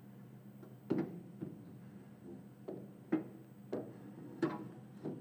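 Tormach 15L Slant-PRO lathe tailstock being set onto and slid along the lathe's bed ways by hand: a series of about six irregular, light metal knocks and clunks as it seats on the ways.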